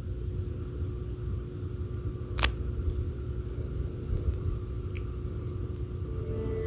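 Low steady hum with a single sharp click about two and a half seconds in and a faint tick near five seconds, as a PlayStation 3 console is switched on.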